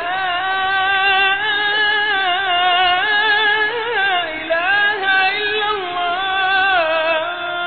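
A single voice singing a slow, ornamented melody in long, wavering held notes, an Arabic devotional song (nasheed).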